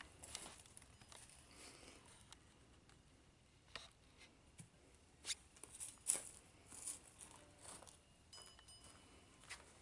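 Near silence broken by faint scattered clicks and rustles, with a few sharper ticks in the middle.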